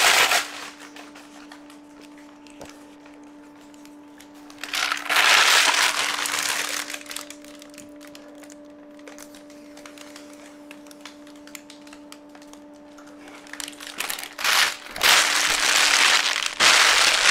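Thin plastic protective film crinkling as it is peeled off a flat-screen TV and crumpled in the hand. The crinkling comes in bursts at the very start, again about five seconds in, and over the last three seconds, with a faint steady hum in the quieter stretch between.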